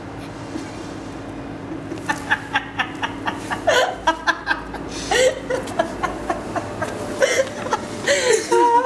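Two people laughing, starting about two seconds in: short, rapid bursts of laughter that grow louder and denser toward the end, over a steady low background hum.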